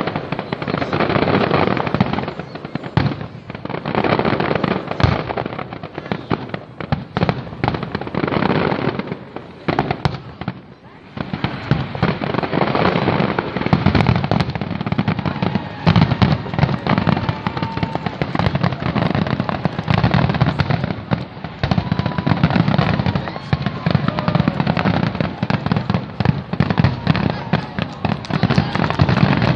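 Aerial fireworks shells bursting in a dense, continuous barrage of overlapping bangs and crackles, easing briefly about ten seconds in before growing thicker again.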